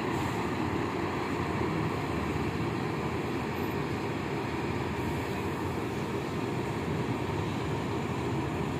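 Diesel engine of a large double-decker coach running as it moves off at low speed, a steady low rumble.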